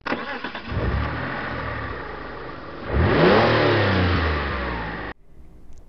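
A car engine running steadily, then revving hard about three seconds in, rising in pitch and holding high, before it cuts off suddenly about five seconds in.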